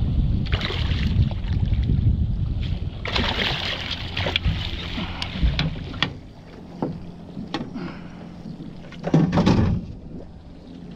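Small fishing boat on the water: a low rumble of water and wind against the hull, with two louder rushes of splashing noise and scattered knocks and clicks on deck.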